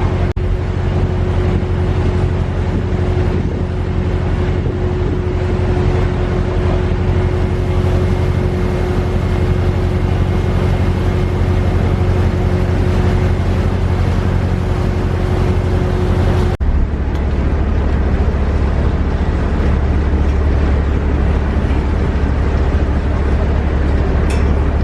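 A vehicle's motor running steadily with a loud low rumble and a steady hum. The sound changes abruptly about two-thirds of the way through, and the rumble carries on in a different tone.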